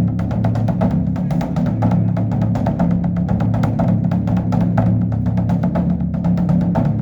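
Large Korean Buddhist temple drum (beopgo) beaten with two sticks in a rapid, unbroken roll of strokes, several a second, over a steady low boom.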